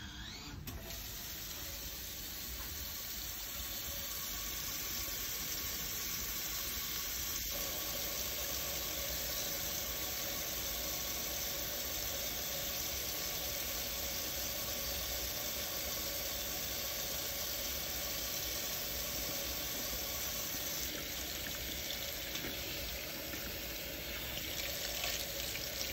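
Tap water running steadily into a stainless steel sink during handwashing, with splashing as hands are rinsed under the stream near the end.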